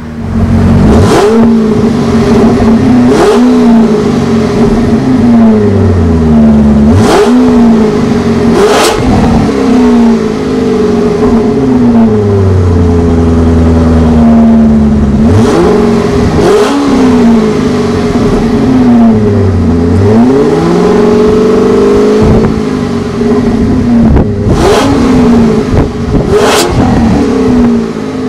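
Supercharged 4.4-litre Northstar V8 of a 2009 Cadillac XLR-V, heard at its quad exhaust tips, revved repeatedly from idle. About a dozen quick blips, each rising fast and dropping back to idle; a very free-revving engine.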